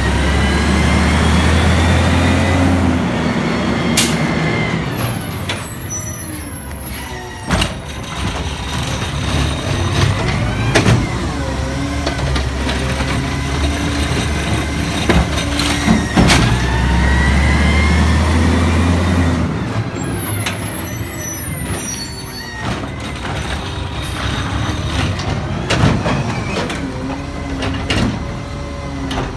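Garbage truck working through two cycles: its engine revs up hard, then a sharp hiss of air follows a couple of seconds later, with knocks in between.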